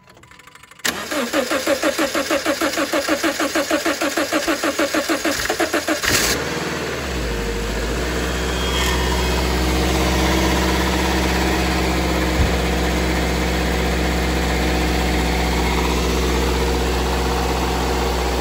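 A car engine is cranked by its starter, pulsing evenly for about five seconds, on power from a GOOLOO GT4000S lithium jump starter in boost mode. It then catches, flares up briefly and settles into a steady idle: the jump start has worked.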